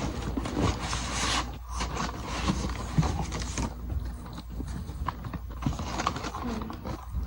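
Cardboard shoebox and wrapping paper being handled during an unboxing: bursts of rustling with scattered knocks and clicks, over a steady low hum.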